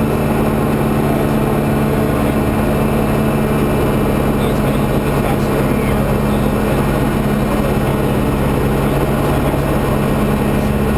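Diamond DA40CS's four-cylinder Lycoming engine and constant-speed propeller running in flight, heard inside the cockpit as a steady drone.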